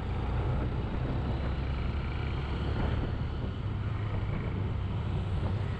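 Motorcycle riding at a steady speed on a highway: steady engine hum mixed with wind and road noise.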